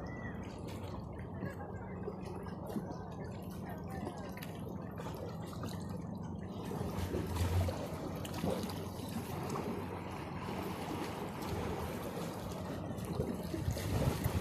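Seawater lapping and gurgling among shoreline rocks, a steady wash of small sounds, with a brief low bump about seven seconds in.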